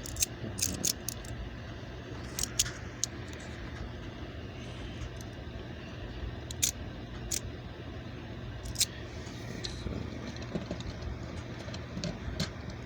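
Scattered sharp clicks and light handling noises of a plastic toy figure being handled, over a steady low hum.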